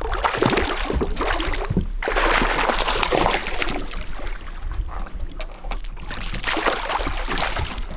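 Repeated splashing and sloshing of water as a hooked fish thrashes at the surface and is scooped into a landing net beside a boat.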